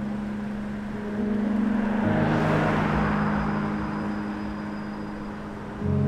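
A car passing close by: its tyre and engine noise swells to a peak a couple of seconds in, then fades away.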